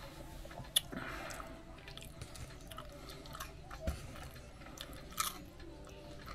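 Chewing, with crunches and a few sharp clicks; the loudest click comes about a second in.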